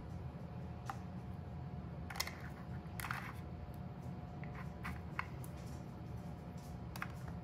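Light, scattered clicks and taps as string cheese sticks are pulled from a bunch and laid into a glass baking dish between dry manicotti shells, over a faint steady hum.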